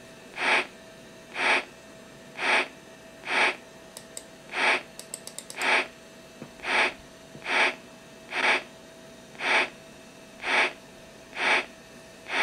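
A Macintosh SE/30's built-in speaker playing a digitized breathy whoosh, the same sound effect the program uses for the airbag, repeated about once a second. A few short clicks come partway through.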